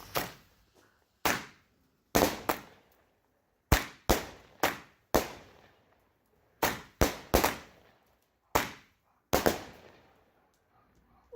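Legend Fireworks 'Indiana Jamboree' 8-shot 200-gram aerial cake firing: a rapid, irregular series of sharp bangs, about fifteen in nine seconds, each dying away quickly.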